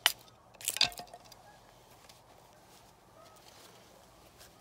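Tomahawk blade striking a thin wooden stick held upright on a wooden stump, splitting it: two sharp chops, one at the start and one just under a second later.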